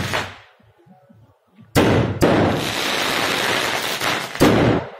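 Firecrackers going off. A volley dies away at the start, then after a short lull a sharp crack sets off a dense run of rapid bangs and crackle lasting about two and a half seconds, ending on another loud crack.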